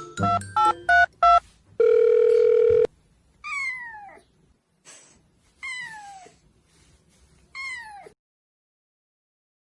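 A kitten meowing three times, each call high and falling in pitch. Before the meows, a few quick chiming notes and a loud steady one-second beep sound.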